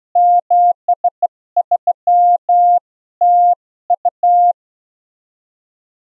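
Morse code keyed on a straight key: a near-pure sine tone of about 700 Hz from a Peterson Chromatic Tuner 320, switched on and off into dots and dashes. It stops about four and a half seconds in.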